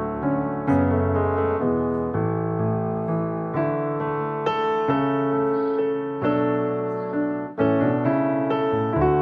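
Background piano music: soft chords and melody notes struck one after another, each ringing and fading.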